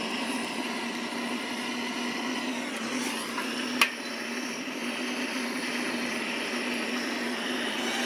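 Gas torch burning with a steady hiss, held on the wraparound sleeve of an underground power-cable splice to shrink it on. A single sharp click a little before halfway.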